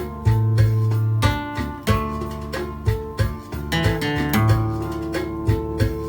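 Instrumental music played on acoustic guitar: a melody of plucked notes over a low bass line.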